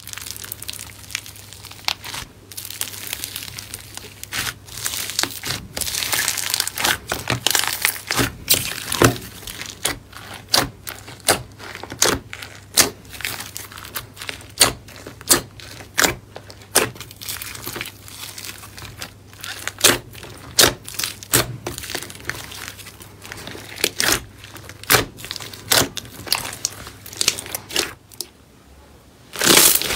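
Thick slime packed with white chunks being pressed and pulled apart by hand in a plastic tray, giving a run of irregular crackling, sticky pops and clicks, over a low steady hum.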